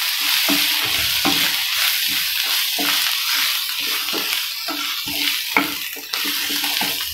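Onion-tomato masala sizzling in sesame oil in a nonstick frying pan, stirred and scraped with a wooden spatula in quick strokes, about two a second, over a steady hiss.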